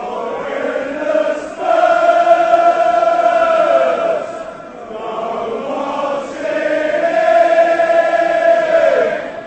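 A soundtrack of voices chanting together in chorus, holding long notes in phrases a few seconds long, each phrase sliding down in pitch at its end.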